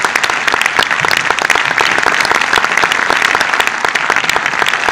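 A large audience applauding: dense, steady clapping from many hands.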